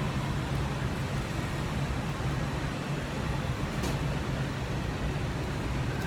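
Steady rumble and hiss of city street traffic, with one light click about four seconds in.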